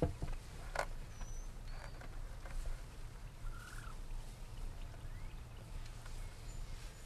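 Quiet field ambience with a steady low rumble, a soft thump at the start and a sharp click just under a second in, and a few short faint bird calls, one a small arched call about three and a half seconds in.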